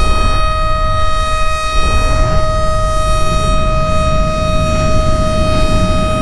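Civil defense siren sounding one steady, unwavering tone during a siren test, over a low rumble.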